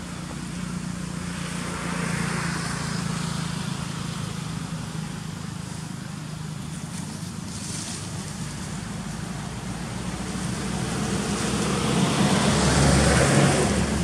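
Road traffic: a steady motor-vehicle engine hum with tyre noise, swelling as a vehicle passes about two seconds in and louder as another passes close near the end.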